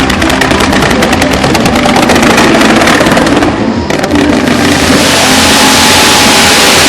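Fireworks going off: a rapid string of sharp bangs, several a second, for about three and a half seconds, then a dense continuous hissing crackle.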